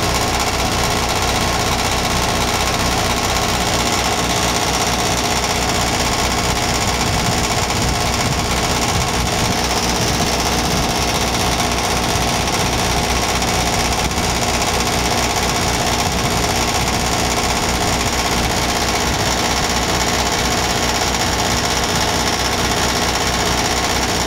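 Broan 3-ton heat pump outdoor unit running steadily, its fan and Copeland scroll compressor giving a continuous mechanical hum. A buzzing rattle runs through it from a loose part on top of the unit, which the owner blames for the unit being noisy rather than any fault in the heat pump.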